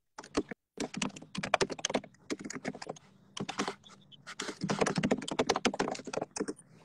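Typing on a computer keyboard, the keys clacking in quick runs broken by short pauses.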